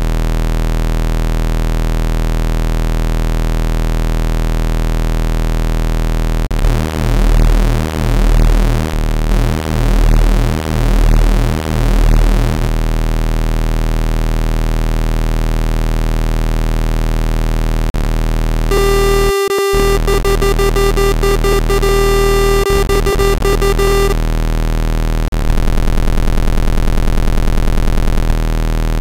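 A dense chord of steady synthetic tones from a frequency-therapy phone app playing its 'Infection' frequency set. From about six to twelve seconds in, the tones beat in slow pulses about once a second. About nineteen seconds in, a loud single tone joins for about five seconds, and the mix shifts again near the end.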